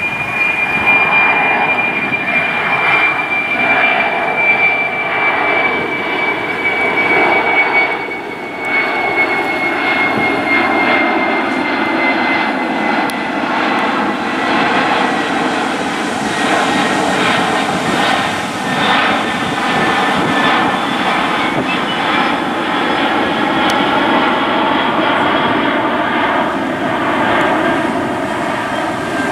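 Four-engined Boeing 747 jet climbing out overhead, its engines running with a steady loud rush and a high whine that slowly falls in pitch as the plane passes and draws away.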